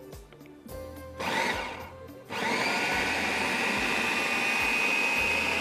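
Super Asia electric chopper with double stainless-steel blades grinding meat for kababs. A short pulse rises in pitch about a second in, then after a brief pause the motor runs steadily with a high whine.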